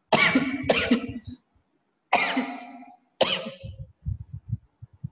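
A person coughing: four loud coughs, two close together at the start and two more a second or so apart, followed near the end by a few soft, low thumps.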